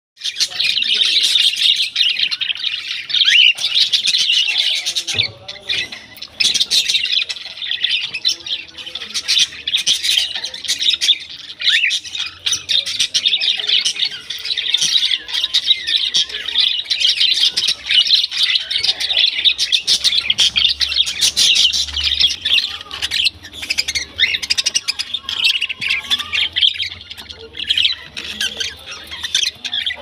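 Many caged cockatiels and budgerigars calling together: a dense, unbroken din of chirps, chatter and squawks.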